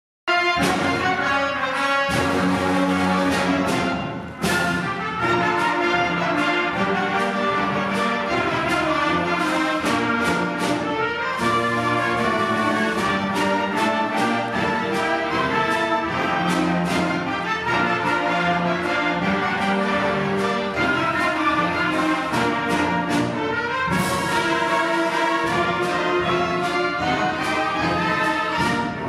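Middle school concert band playing live: brass and woodwinds sounding together, with a brief drop in level about four seconds in.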